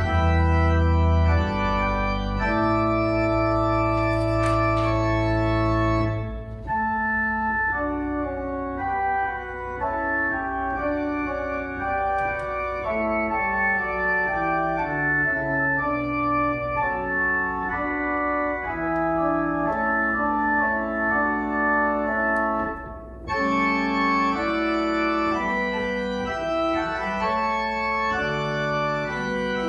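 Electronic keyboard played with an organ voice: slow, sustained chords over held bass notes, with a brief pause between phrases about 23 seconds in.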